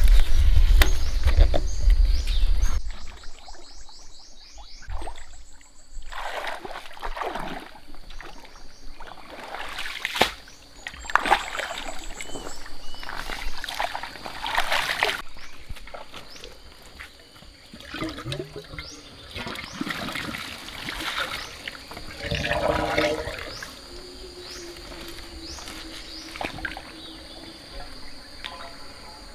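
Water splashing and trickling in uneven bursts, after a loud low rumble that stops abruptly about three seconds in.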